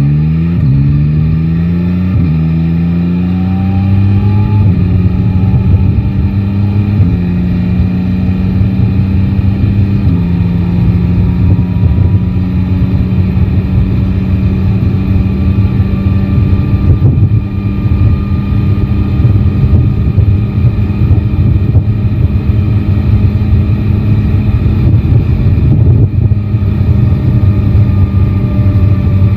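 Yamaha Tracer 9 GT's three-cylinder engine accelerating up through the gears: the pitch climbs and drops back at four upshifts over the first ten seconds, then holds a steady cruise. Wind rushes over the microphone throughout.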